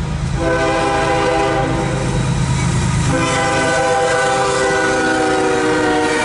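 A CSX diesel locomotive's multi-chime air horn sounding a chord in long blasts for the grade crossing. One blast ends right at the start, a second runs for about two and a half seconds, and a third begins about three seconds in, over the low rumble of the approaching locomotive.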